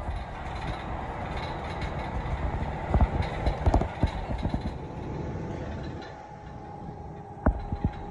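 Passenger train running, heard from inside the carriage: a steady rumble with a cluster of knocks about three seconds in and another knock near the end.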